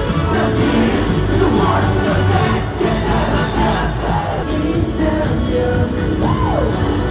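Live pop music with singing played over an arena's sound system during a stage performance, loud and steady, with a single voice swooping up and back down in pitch near the end.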